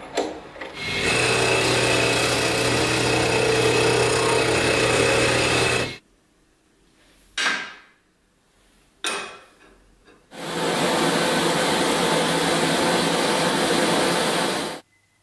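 A metal lathe runs for about five seconds, turning a steel ring held in its chuck. Two short metal clinks follow as the parts are handled. Then there are about four and a half seconds of electric arc welding, which cut off suddenly.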